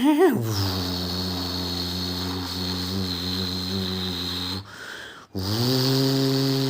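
A person imitating a Hino RK-8's diesel engine and standard exhaust idling, using the voice: a low, steady, throaty drone. About four and a half seconds in it stops for a brief breath, then resumes slightly higher and wavering.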